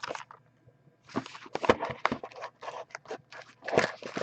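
Plastic shrink wrap on a sealed trading card box crinkling and rustling in irregular bursts as the box is handled.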